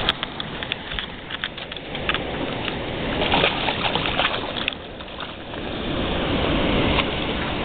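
A hooked lake trout thrashing and splashing at the water's surface beside a boat, over wind noise. Scattered small knocks and clicks come from handling in the boat, and the splashing is loudest about three to four seconds in.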